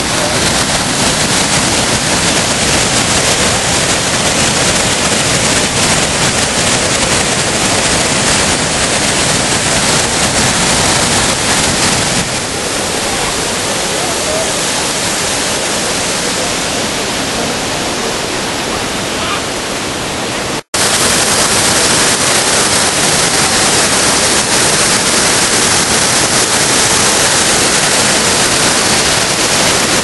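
Loud, steady rush of the Upper Düden Waterfall, water pouring and churning over the falls as an even noise. It cuts out for an instant about two-thirds of the way through, then resumes.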